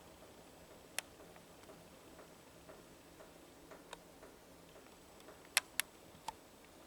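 A few sharp, irregular clicks over a faint steady hum. The loudest two come close together near the end.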